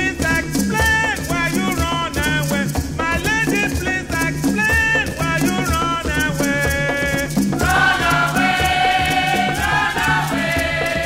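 Background music with a steady shaker rhythm under a melody; about two-thirds of the way through, fuller held chords come in.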